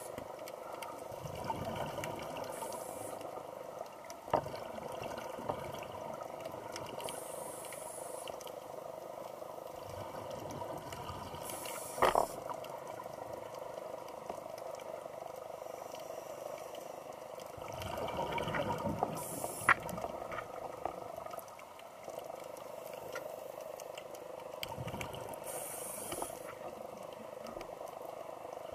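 Underwater scuba breathing: a regulator hisses on each inhale and exhaled bubbles rumble every few seconds over a steady underwater hiss, with a few sharp clicks.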